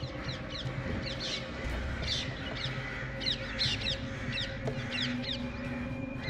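Crows gathering and calling, a quick run of short, falling calls overlapping one another.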